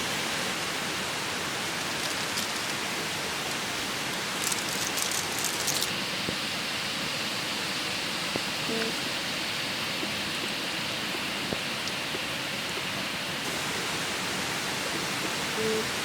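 Valley stream rushing steadily, with a cluster of light clicks about five seconds in.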